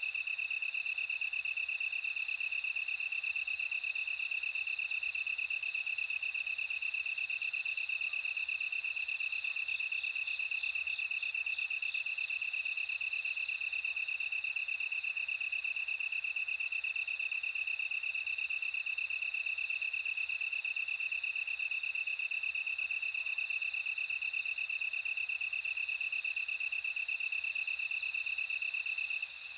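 Bell crickets singing: a steady, unbroken high trill, joined about five seconds in by louder ringing chirps that repeat about every one and a half seconds for some eight seconds, and again near the end.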